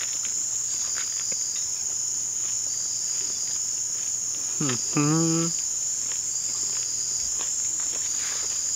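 Steady high-pitched trilling of insects in chorus, with a pulsing second layer a little lower in pitch. About five seconds in, a man gives one short hummed "mmm" of relish while tasting food.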